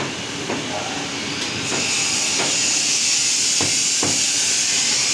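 Several scattered knocks of a butcher's cleaver chopping meat on a wooden block. A loud steady hiss sets in about two seconds in.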